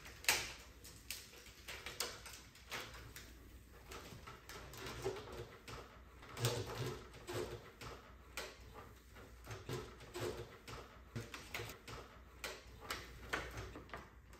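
Light handling noises of a thin plastic reflector sheet being fitted back over a TV's LED backlight strips: soft crinkles, taps and small clicks at irregular intervals.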